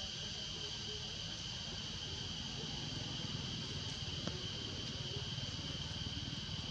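Steady insect chorus, a constant high ringing of several even tones, over a low rumble, with one faint click about four seconds in.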